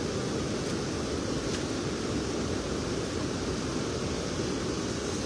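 Steady rush of a high river pouring over a low weir, a continuous low roar of water.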